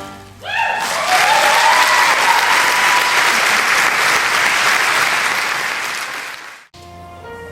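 Audience applauding at the close of a musical number: the clapping swells within half a second, holds, then fades slowly before cutting off abruptly. Music starts up near the end.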